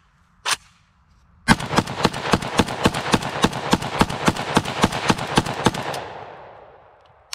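AK-pattern rifle firing a fast string of about twenty-odd shots, roughly five a second, then stopping, with the echo fading out over the field. One short sharp sound comes about half a second before the string starts.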